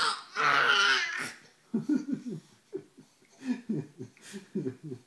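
Baby laughing as he is lifted and played with: a breathy, high squeal of laughter in the first second, then a string of short laughing bursts.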